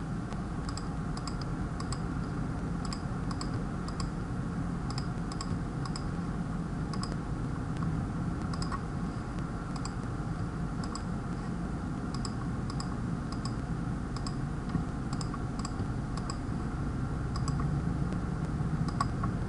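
Computer mouse clicking repeatedly and irregularly, often in quick pairs, over a steady low hum.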